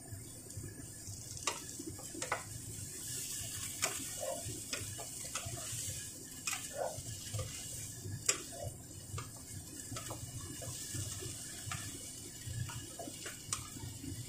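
Cauliflower and carrots simmering in a little water in a covered frying pan to soften them: a steady hiss of boiling water with irregular sharp pops and ticks, about one a second.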